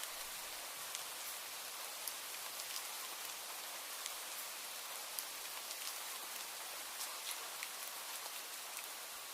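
Steady rain, a continuous high hiss with scattered individual drops ticking on a surface.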